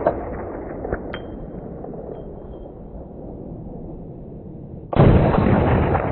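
A single rifle shot from an LWRC IC-DI 5.56 AR-15 fitted with a Dynamis Alliance Muzzle Thumper, about five seconds in, its report dying away slowly. Before it, the tail of the previous shot fades and a couple of light metallic pings ring out about one and two seconds in.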